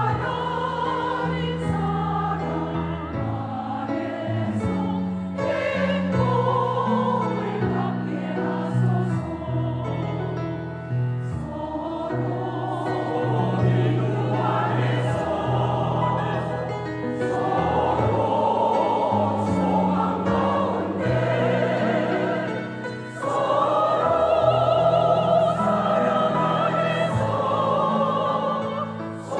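A church choir singing a hymn in parts, the voices full of vibrato, over held low accompaniment notes.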